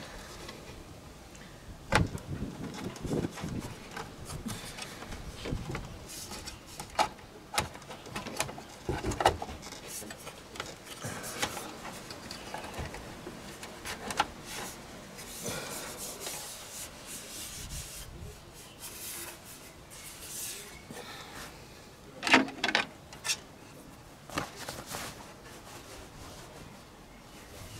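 Handling noise: scattered clicks, knocks and rubbing as parts are handled by hand, with a cluster of louder knocks about two-thirds of the way through. No blower is running.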